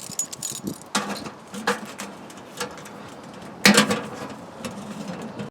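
Handling knocks and clicks as the flag is taken off a mailbox: about five separate sharp hits with a short ring, the loudest about four seconds in.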